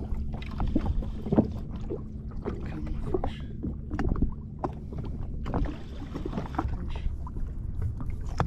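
Sea water slapping and lapping against the hull of a drifting jet ski, with short irregular knocks and splashes and a faint steady hum during the first half.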